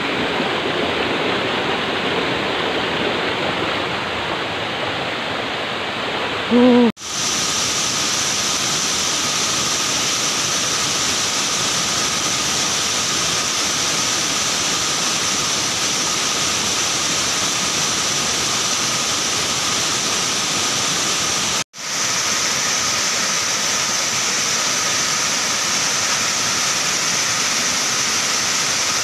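Waterfall and rocky stream rushing steadily. The sound breaks off abruptly twice, about seven and twenty-two seconds in, and after the first break the water is joined by a thin, steady high tone.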